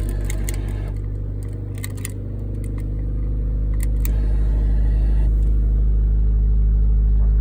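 Third-generation Honda Prelude's four-cylinder engine idling steadily after starting. A few sharp clicks sound over it in the first four seconds.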